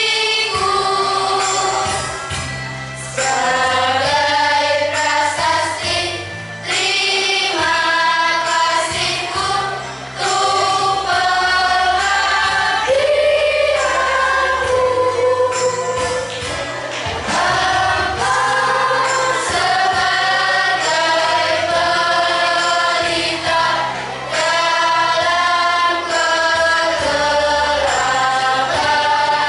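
Children's choir of boys and girls singing a song together, the melody moving from note to note without a pause.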